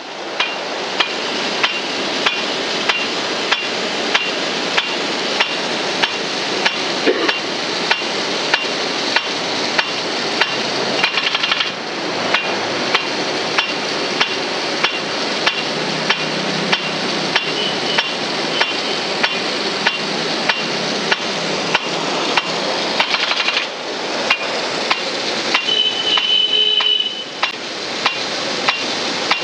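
Large agricultural rain gun sprinkler spraying water under pump pressure: a steady rushing hiss of the jet. Its swing arm knocks sharply in an even rhythm, about one and a half times a second.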